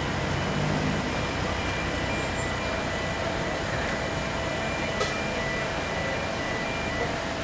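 Road traffic noise, with a car passing about a second in, and a faint steady tone running through most of it.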